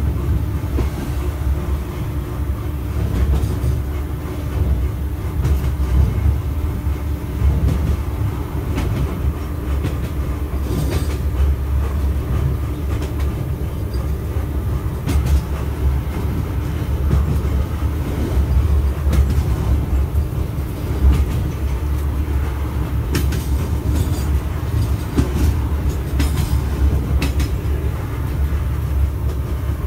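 81-717.5/81-714.5 metro train running along surface track, heard from the driver's cab: a steady low rumble and hum, with the wheels clicking over rail joints here and there, most often in the later part.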